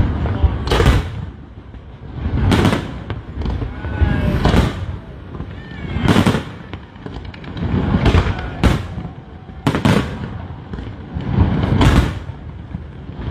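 Fireworks display: aerial shells bursting every second or two, each a sharp bang, with a low rumble carrying between them.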